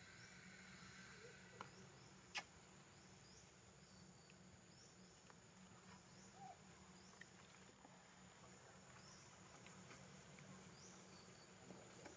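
Near silence: faint outdoor ambience with soft high chirps repeating every second or so, and one sharp click a little over two seconds in.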